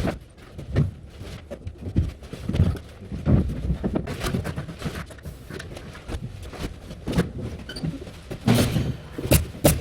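Irregular knocks and thuds of carpentry work, with a few sharper clicks near the end.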